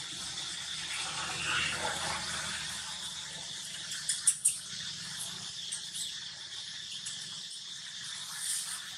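Steady high chirring of insects, with two sharp clicks a little past the middle and a few fainter ticks later.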